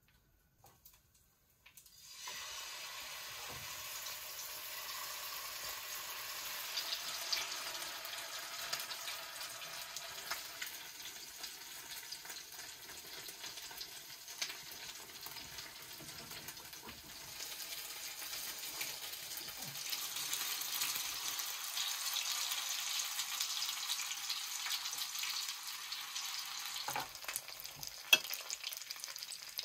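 Pancakes frying in a pan of hot oil on a gas stove: a steady sizzle that starts suddenly about two seconds in. A few sharp knocks near the end.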